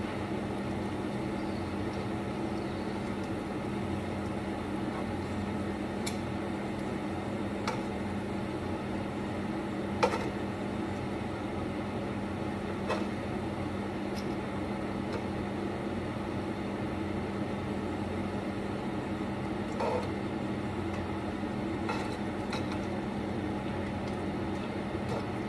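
Metal cooking utensils clinking now and then against a frying pan and plate as cooked chicken pieces are lifted out, the sharpest clink about ten seconds in. Under it a kitchen appliance hums steadily.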